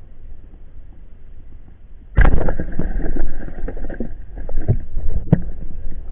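Water splashing and churning around a camera held in the sea, starting suddenly about two seconds in with scattered knocks, after a faint low hum.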